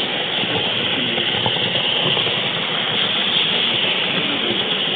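Steady loud rushing rumble of N scale model train wheels rolling along the rails, picked up close by a small camera riding on the train.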